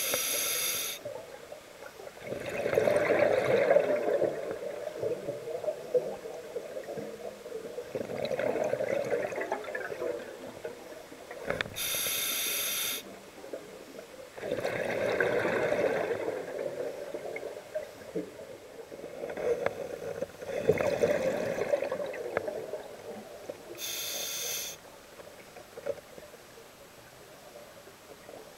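A scuba diver breathing through a regulator underwater. Exhaled bubbles burble every five or six seconds, and a short hiss from the regulator comes three times, about twelve seconds apart.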